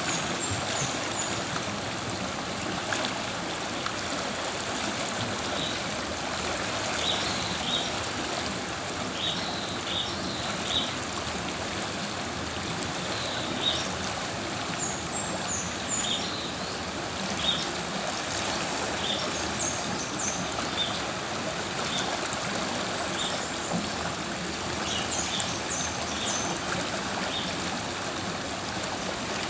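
River water flowing steadily, a continuous rushing and gurgling over the stream bed. Short high chirps come and go throughout.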